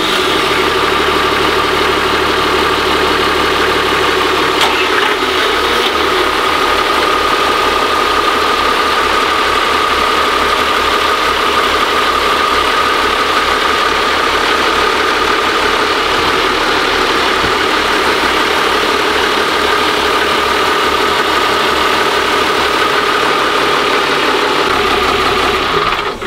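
Volvo Penta inline marine diesel engine idling steadily in the open engine bay of a sterndrive motor cruiser, an even low throb with a steady whine over it.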